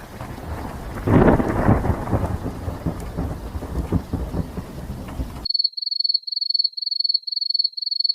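Thunderstorm sound effect: rain hiss with a loud rumble of thunder swelling about a second in, cut off abruptly. Then a high electronic beep starts, repeating about three times a second.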